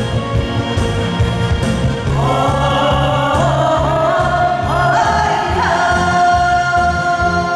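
Trot song played on a backing track with a steady beat, with a man and a woman singing a duet over it through microphones. The vocals come in about two seconds in and end on a long held note.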